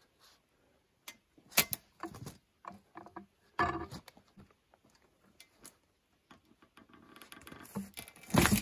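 A western hemlock log being levered and rolled with a Stihl cant hook: scattered, irregular knocks and scrapes of the steel hook and wood against the bark, with the log bumping as it shifts, loudest about eight seconds in.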